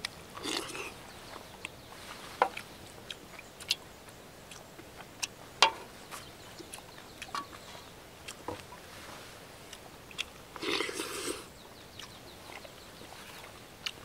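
Eating sounds: chewing, with scattered sharp clicks and two short noisier stretches, about half a second in and again around three quarters of the way through.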